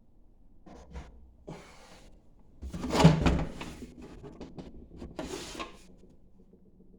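Handling noises from hardware being moved about: a few clicks and knocks, the loudest a heavy thud about three seconds in, then a short scuffing rustle.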